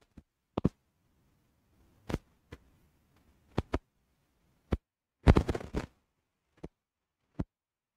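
Scattered sharp clicks and knocks, one every second or so, with a short quick cluster of them about five seconds in, and near silence between them.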